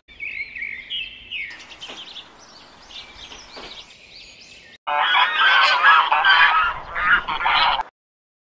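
Small songbirds chirping. Faint high calls come first, then about five seconds in a sudden louder burst of dense twittering, which cuts off abruptly near the end.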